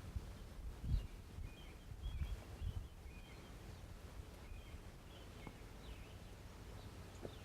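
Small birds chirping in short, repeated phrases, with a few low rumbling thumps, the loudest about a second in and more around two to three seconds in.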